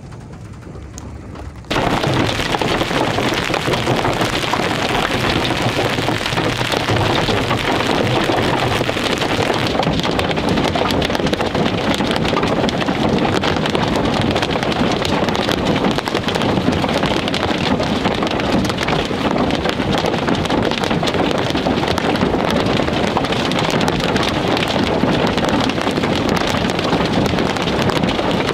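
Hail and rain pelting a vehicle's roof and windshield, heard from inside: a dense, steady clatter of many small impacts that starts abruptly about two seconds in, after a brief quieter stretch.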